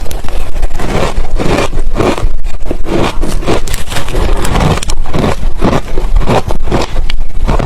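Ice being bitten and chewed close to the microphone: a dense, irregular run of loud, crisp crunches.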